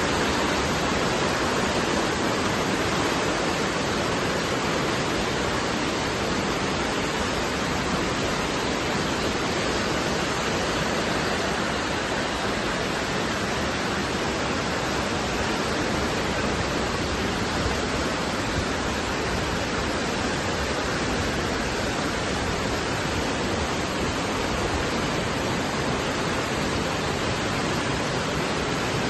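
Steady, even rushing noise with no separate sounds in it.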